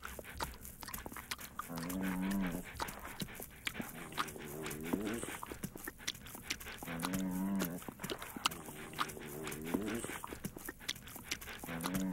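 Bulldog howling with its head thrown back: low, drawn-out moaning calls, a steady one followed by a wavering one, repeating about every five seconds over a faint crackle of clicks.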